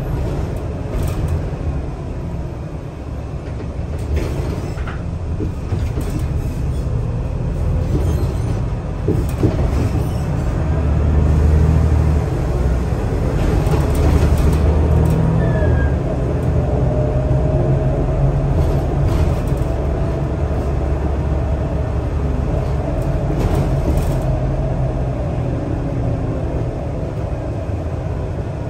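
Scania L94UB city bus heard from inside the cabin while driving: a heavy low engine and road rumble that swells about ten to fifteen seconds in, with scattered light rattles from the interior fittings and a faint whine a few seconds later.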